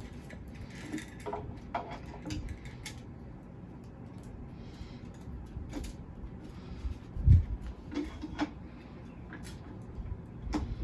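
Handling of packaging and statue parts during unboxing: scattered rustles, light clicks and knocks, with one dull thump about seven seconds in.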